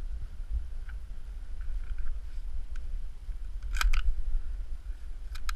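Wind buffeting the microphone as a steady low rumble, with a quick cluster of sharp clicks about four seconds in and another pair near the end.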